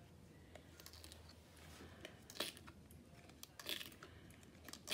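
A flower-shaped silicone mold being peeled off a resin coaster: three short crackling, tearing sounds, about a second apart, as the silicone pulls away from the resin.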